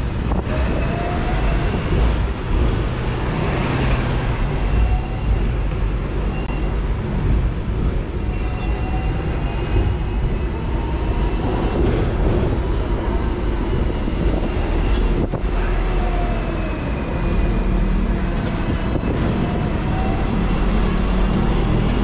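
Hong Kong double-decker tram running on its street rails: a steady rumble of wheels and body, with faint whining tones that rise and fall now and then.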